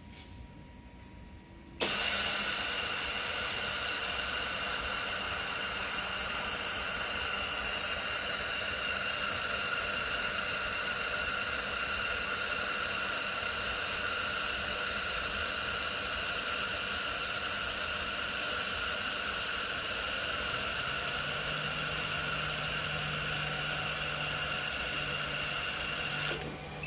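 Jet1000 air-cooled laser welder welding: a loud, steady hiss that starts suddenly about two seconds in, runs unbroken and cuts off abruptly near the end. A low hum joins in during the last few seconds.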